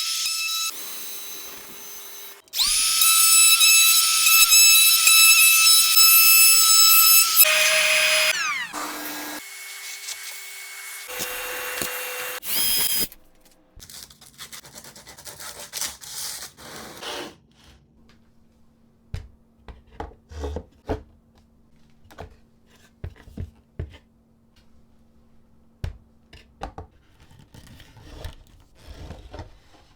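Electric power drill run in several bursts at different speeds. The longest run starts about two and a half seconds in and winds down with falling pitch, followed by shorter runs. Quieter clicks and knocks of parts and tools being handled follow.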